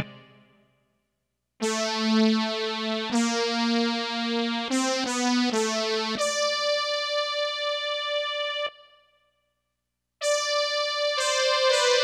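Roland SC-55 sound module playing synthesizer notes, triggered one at a time from an Arduino keypad MIDI controller set to mono mode. After a short quiet start come several quick note changes, then one note held with a wavering pulse. A pause follows, then notes resume with a second note overlapping near the end.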